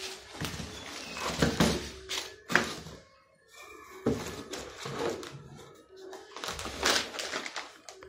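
Plastic wrapping crinkling and a cardboard box rustling as a ceiling-fan motor is handled and set into the box, with a few sharp knocks. Faint music plays underneath.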